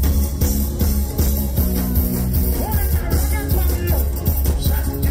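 Loud live carnival band music with a heavy, steady bass line and drums.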